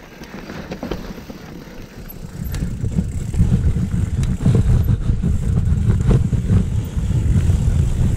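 Mountain bike riding down a rough trail: a low rolling rumble of tyres and wind on the microphone builds about two and a half seconds in, with scattered clicks and knocks from the bike over the terrain.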